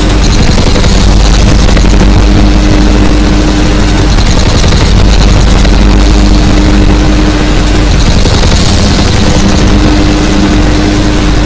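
Experimental drone-noise music: a loud, dense wall of distorted noise over a steady low drone with a few held tones, its high hiss swelling about every four seconds.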